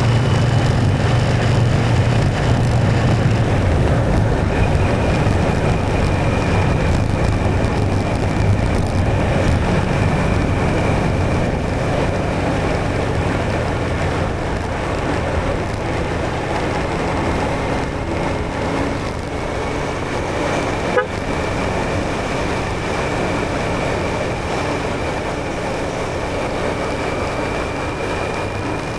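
Motorcycle on the move: engine running under steady wind noise on the action camera's microphone, with a faint high whine through much of it and a single sharp click about two-thirds of the way through.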